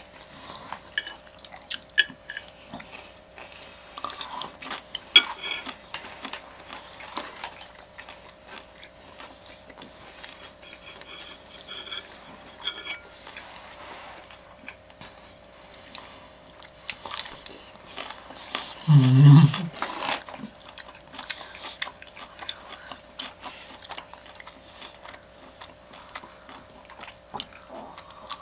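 Close-miked chewing and crunching of sea grapes and sushi: scattered small crackles and clicks with quiet gaps. There is a short low hum of a voice about 19 seconds in.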